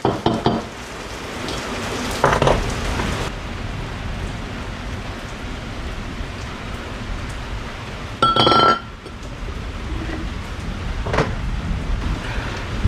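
Heavy rain falling steadily, with a few metal knocks and clinks from fork parts being handled. About eight seconds in comes a loud, ringing metal clank.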